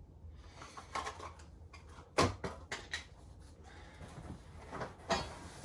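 Parts and packaging being handled while unpacking a cardboard box: a string of knocks and light scraping, with one sharper knock about two seconds in.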